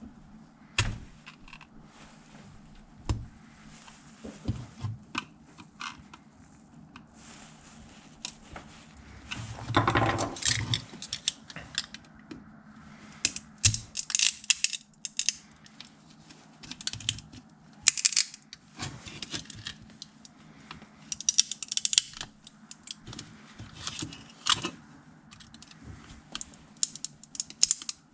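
Support material being snapped and broken away from a 3D-printed plastic impeller: irregular sharp clicks, cracks and scraping, coming in clusters with short gaps between.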